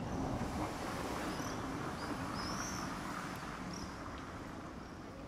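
A vehicle passing on a nearby road: its tyre and engine noise swells in at once, holds for a few seconds and fades away. A few short bird chirps sound over it in the middle.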